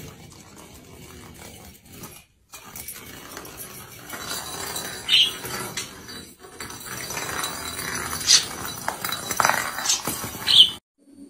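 A budgerigar playing with small plastic toy balls on a hard floor: light clicks and knocks as the balls roll and bump, with a few short chirps.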